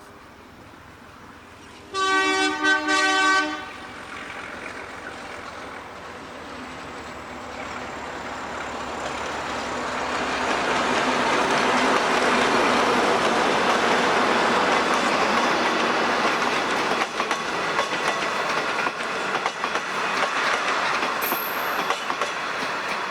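Alco diesel locomotive sounding its horn in a short, loud chord of about a second and a half, broken into a couple of quick pulses. Its train then approaches and passes, the engine and the rumble and clatter of carriage wheels on the rails swelling up and staying loud until it cuts off near the end.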